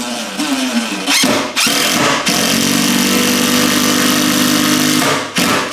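Cordless drill driving a lag bolt into the wall through a steel shelf bracket. The motor runs in a couple of short bursts, then steadily under load for about three seconds, and stops near the end.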